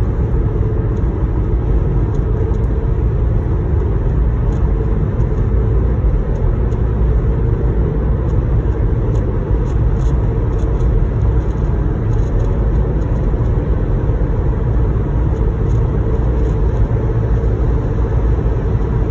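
Steady road and engine noise inside a car's cabin cruising at highway speed, a low, even rumble.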